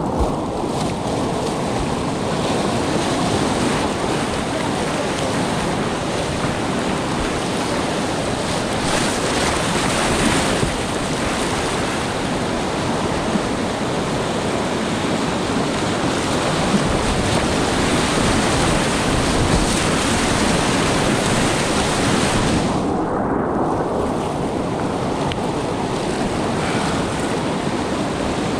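Class IV whitewater rapids rushing and splashing close around a kayak, a steady loud roar of river water. About two-thirds of the way through, the sound goes muffled for a moment before the full rush returns.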